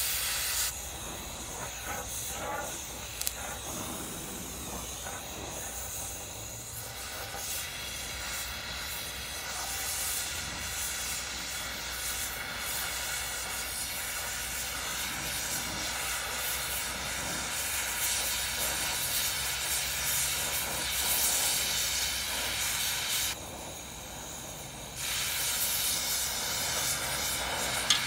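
Oxygen–MagnaGas cutting torch hissing steadily as its flame and cutting oxygen burn through a rusted steel exhaust pipe. The hiss drops away briefly about 23 seconds in, then comes back.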